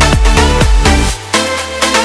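Electronic dance music with a steady kick-drum beat; about a second in the beat drops out, leaving a held bass note.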